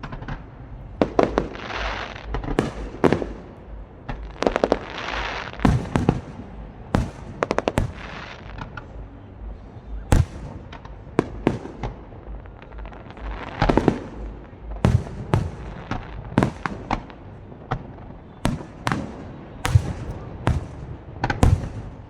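Aerial fireworks bursting, a string of sharp bangs at irregular intervals, some in quick clusters, several followed by a crackling hiss.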